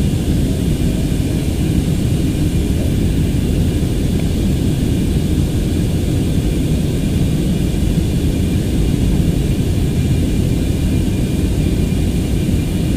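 Steady, deep cabin noise of an airliner in flight, heard inside the passenger cabin: engines and rushing air in an even drone, with a faint high whine over it.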